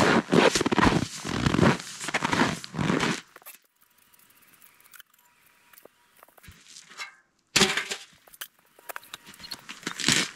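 Rustling and scraping handling noise inside a tent, in two bouts of about three seconds each with a quiet spell between.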